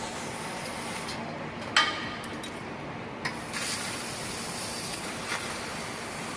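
CNC laser cutting machine running with a steady hiss. There is a sharp click a little under two seconds in, and a few fainter clicks after it.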